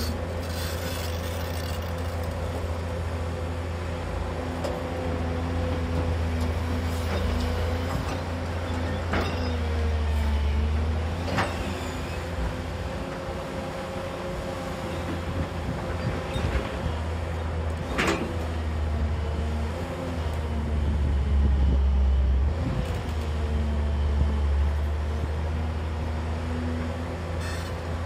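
Diesel engine of a JCB crawler excavator running under load, with a hydraulic whine that wavers and dips in pitch and swells twice as the boom and bucket dig and lift. A few sharp metallic knocks stand out.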